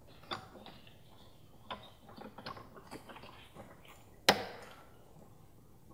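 Small clicks and scrapes of a pick working the plastic locking tab of a fuel-line quick-connector on a fuel filter. About four seconds in comes one sharp snap as the tab pops back closed.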